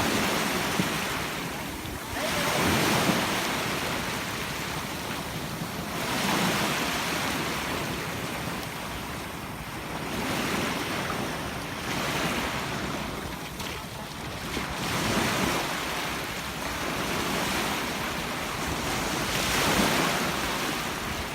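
Sea surf: waves breaking and washing up the beach, a swell about every four seconds, with wind buffeting the microphone.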